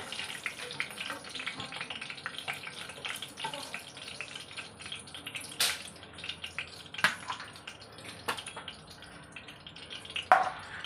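Hot oil crackling and sputtering in a nonstick kadai, still bubbling after spinach koftas were fried in it. A steady run of small pops is broken by a few sharper ones, the loudest near the end.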